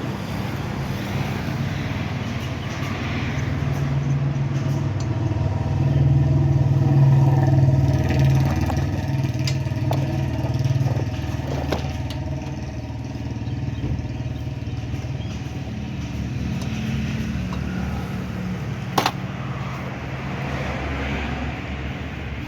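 A car engine running steadily, swelling in level a few seconds in and then easing back. A few sharp metallic clicks are heard, one near the end.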